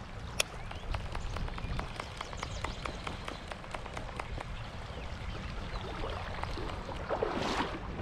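Shallow creek water splashing and trickling close by, with many small drip-like ticks and a louder splash about seven seconds in, over a low rumble of wind on the microphone.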